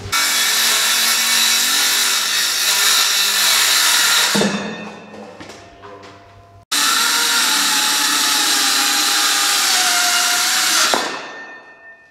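Circular saw cutting through a countertop, in two passes of about four seconds each. Each pass ends with the blade spinning down. The second starts abruptly about six and a half seconds in, and its whine sags slightly in pitch as it cuts.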